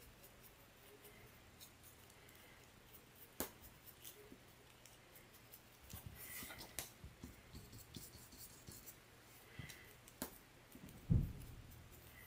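Faint scratching of a stiff paintbrush dry-brushing paint onto the edge of a clay cinnamon roll, with a few light clicks and a single dull thump on the table near the end.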